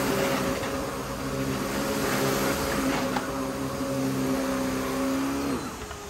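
Panasonic Icon upright vacuum cleaner running with a steady motor whine and airflow hiss as it works the carpet. About five and a half seconds in, the motor winds down and its pitch falls.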